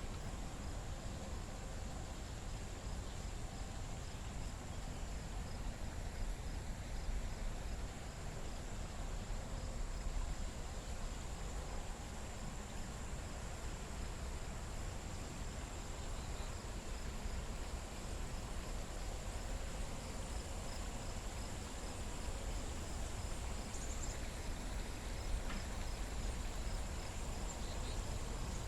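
Outdoor garden ambience: insects buzzing steadily at a high pitch, with a faint quick, even pulsing chirp, over a low rumble.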